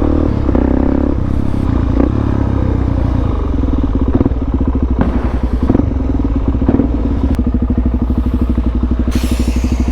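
Motorcycle engine running while riding, its note settling into an even low-rpm pulsing about seven seconds in. A few sharp pops stand out over the engine.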